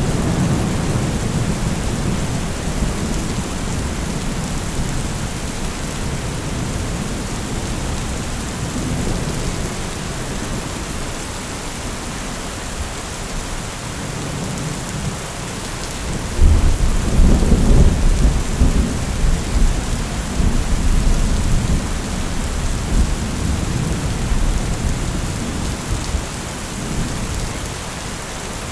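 Steady rain with rolling thunder. A low rumble fades over the first few seconds, then a louder clap of thunder breaks a little past halfway and rolls on for several seconds as it dies away.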